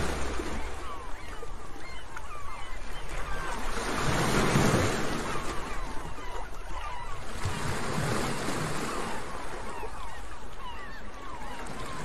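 Sea waves breaking on a shore, swelling about every four seconds, with many short seagull calls over the surf.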